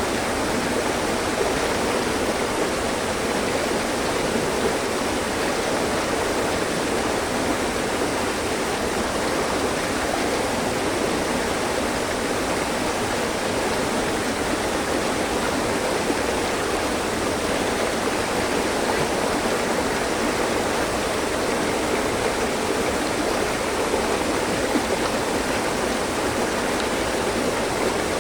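Mountain stream flowing over rocks: a steady, continuous rush of water, strongest in the mid-low range.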